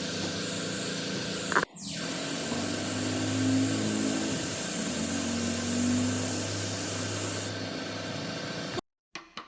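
Steady hissing noise, like air spraying, with a low hum joining about two and a half seconds in; it cuts off abruptly shortly before the end.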